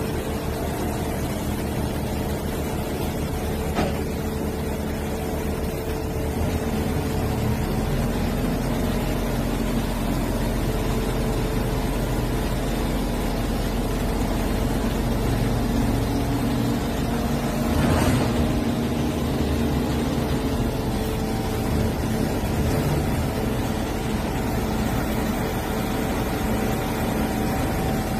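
Truck-mounted crane's diesel engine running steadily as it hoists a cut section of concrete chimney, with a deeper rumble coming in about seven seconds in. A single sharp knock about eighteen seconds in.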